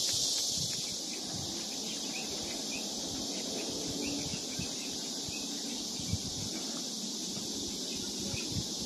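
Steady, high buzzing chorus of insects, with a few short chirps about two to six seconds in and occasional soft knocks.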